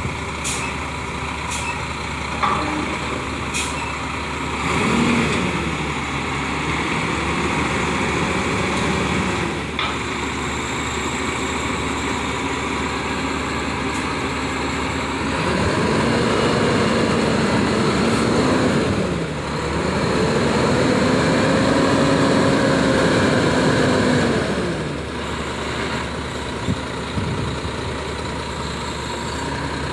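Roll-off truck's diesel engine revving to drive the hydraulic hoist as it lowers a roll-off dumpster to the ground. The engine rises in pitch three times, holding each for a few seconds before dropping back to idle, and a few sharp knocks come in the first few seconds.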